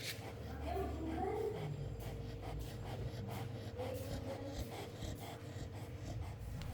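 Chow Chow dog snoring in deep sleep, over a faint steady hum.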